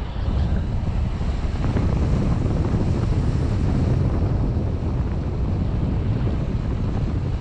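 Wind buffeting the microphone: a steady, low rumble of rushing air.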